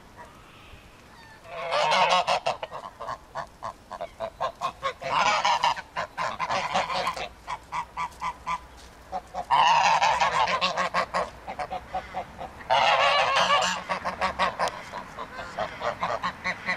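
A group of domestic geese honking, starting about a second and a half in: four loud bouts of rapid, pulsed honks a few seconds apart, with scattered single honks between them.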